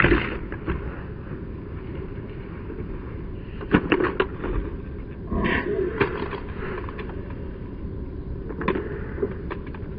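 Steady outdoor background noise with a few brief, muffled knocks and voice-like sounds, the loudest about five and a half seconds in.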